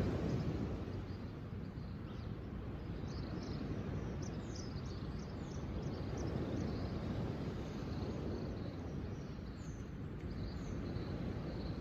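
Small birds chirping in short, high calls scattered through, over a steady low rumble of outdoor noise.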